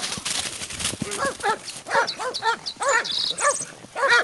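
Short, repeated animal calls, about two or three a second, each rising and falling in pitch like barks. A rush of noise fills the first second.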